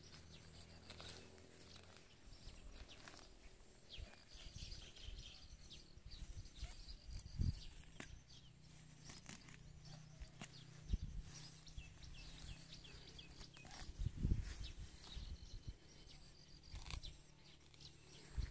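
Quiet rural field ambience: scattered rustling and crackling in tall grass, a few faint bird chirps, and several low thumps of wind or handling on the microphone.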